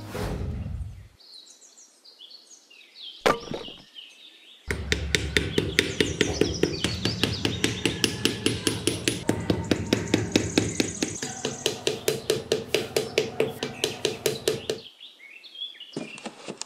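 Rapid, even hammer tapping, about five strikes a second for some ten seconds, after a single sharp knock; birds chirp before the tapping starts.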